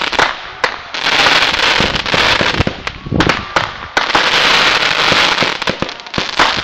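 Consumer aerial fireworks going off: a few sharp bangs, then two long stretches of dense crackling as crackling stars burst overhead.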